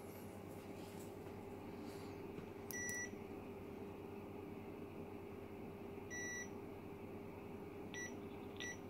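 Multimeter continuity tester beeping as its probes touch points on the headset's mic circuit board. There are four beeps: two of about a third of a second a few seconds apart, then two very short ones close together near the end. Each beep is the sign of an unbroken connection between the probes. A steady faint hum runs underneath.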